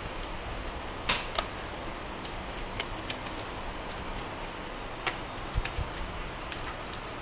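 Scattered light clicks and taps of small tools working on a phone, a couple of sharper ones about a second in and more around five seconds, over a steady background hiss.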